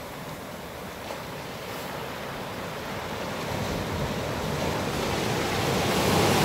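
Ocean surf breaking and washing up a sandy beach, growing louder through the second half as a wave breaks close in.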